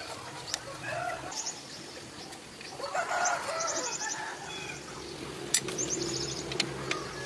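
Chickens clucking with short, repeated calls, mixed with a few sharp clicks and quick high rasping strokes.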